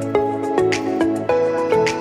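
Instrumental background music, with pitched notes changing a few times a second.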